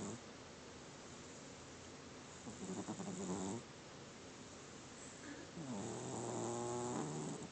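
Domestic cat snoring in its sleep: two buzzing snores a few seconds apart, the second one longer.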